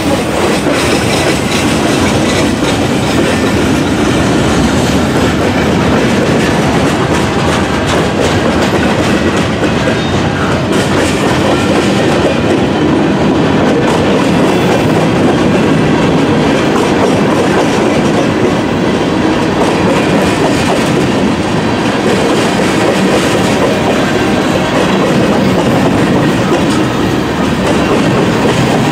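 Freight cars of a passing train rolling by on the near track, their steel wheels clacking over the rail joints with a steady rumble.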